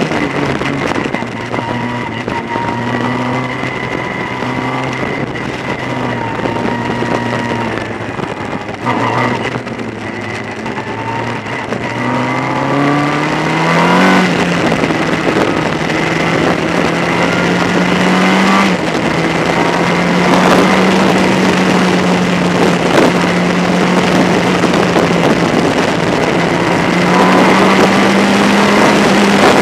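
Formula Ford single-seater's engine heard onboard from the cockpit, running at fairly low revs with small rises and falls for the first half. About halfway through it revs up and then holds a steady, higher pitch.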